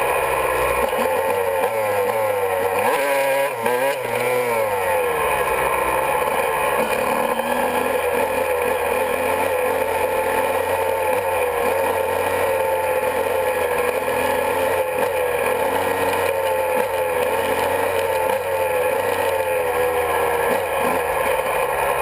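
Honda CR125's two-stroke single-cylinder engine running while riding, its pitch rising and falling with the throttle, with a sharper swing about three to four seconds in.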